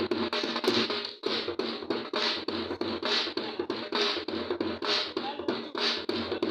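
Punjabi dhol drum played in a quick, steady dance rhythm of sharp strokes, with a brief break about a second in.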